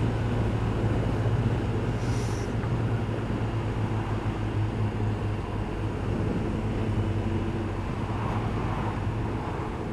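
Kawasaki ZZR1200 inline-four engine running steadily at a cruise, mixed with wind and road noise. There is a brief hiss about two seconds in.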